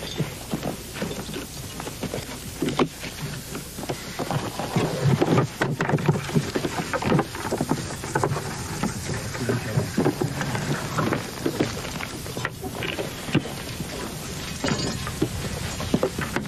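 Irregular knocks, thuds and clatter of baggage and a wooden chest being lifted off a pack mule and handled, with shuffling footsteps on rough, stony ground.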